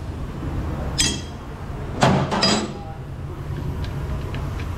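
Brake lathe running steadily with a drum mounted, a low hum throughout. About a second in comes a sharp, ringing metallic clink, and around two seconds in two louder knocks.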